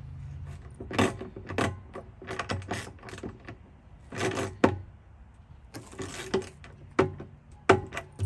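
Irregular metallic clicks and rattles of a small steel latch bracket and its bolt and nut being fastened by hand onto a plastic spreader hopper.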